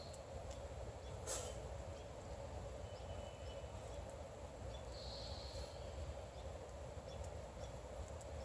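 Outdoor morning ambience: a steady low hum with a brief high bird chirp about five seconds in, a fainter call around three seconds, and a short tick a second in.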